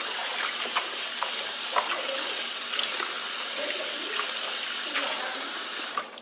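Kitchen tap running steadily into a bowl of water and cut yardlong beans as hands stir them, with small splashes. The running water cuts off abruptly just before the end.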